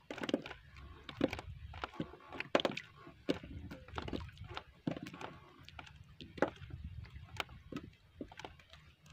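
Irregular light knocks and taps on the wooden hull of a small outrigger canoe during handline fishing, as line is hauled in and fish are taken off the hooks, over a faint low rumble.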